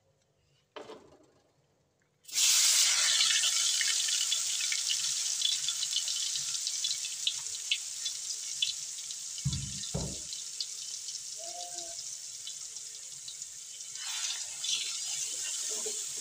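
Ground chili-and-shallot spice paste dropped into hot oil in a metal wok, about two seconds in: a sudden loud sizzle full of small crackles that slowly dies down. Two dull knocks come in the middle, and the sizzle picks up a little near the end as a spatula stirs the paste.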